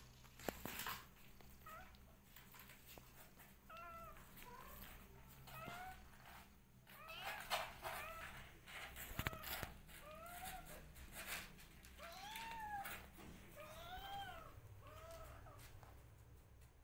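Kitten mewing over and over: about a dozen short, high mews, each rising and falling, roughly one a second, with light rustling and scratching between them.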